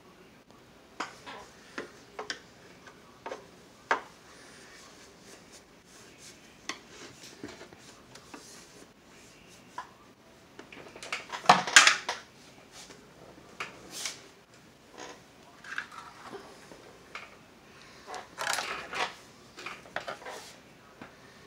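Scattered clicks and knocks of an old Zenith radio cabinet and its small metal parts being handled and fitted on a workbench. A louder clatter comes about halfway through, and another cluster near the end.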